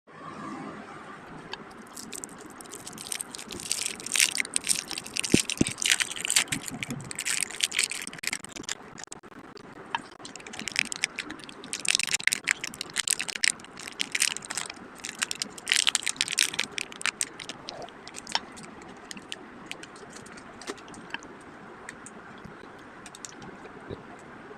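Plastic candy wrappers and packets crinkling and rustling as they are handled, with small rattles. The sound comes in two busy spells and thins to occasional clicks over the last third.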